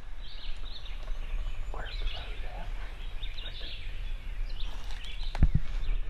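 Woodland birdsong, scattered chirps over a steady low rumble, with a single sharp knock about five and a half seconds in.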